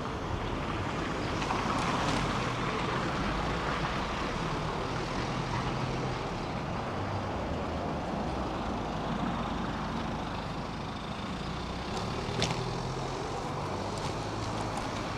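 Steady city street traffic and road noise, with a short sharp click about twelve seconds in.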